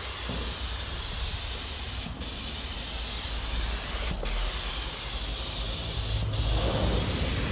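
Air-fed gravity-feed spray gun spraying automotive paint onto a car's body panels: a steady hiss of atomising air, with brief breaks about every two seconds.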